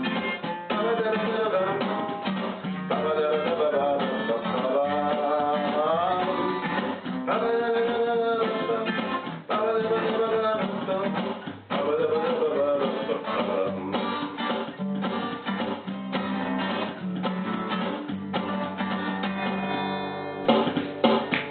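Acoustic guitar song music. A voice or melody line glides over the strummed guitar for roughly the first half, and the guitar carries on toward the end.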